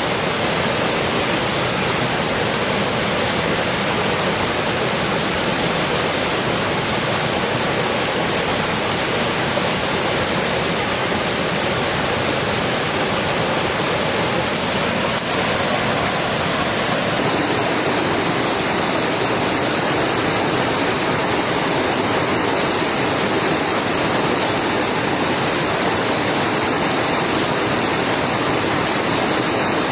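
Heavy rain falling steadily, an even, dense hiss with no breaks; its tone shifts slightly a little past halfway through.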